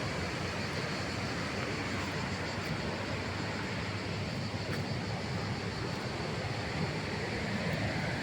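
River waterfall rushing steadily: an even wash of falling water.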